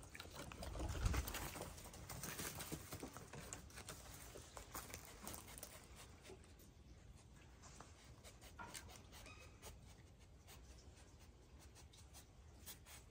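Coati foraging on weathered wood, making faint scattered scratches and taps with its claws and snout as it hunts for hidden food scraps, busier in the first few seconds. A low thump comes about a second in.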